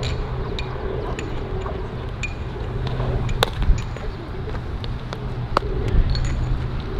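Scattered sharp knocks and pings, some with a brief metallic ring, over a steady low rumble; two louder cracks come a little past the middle.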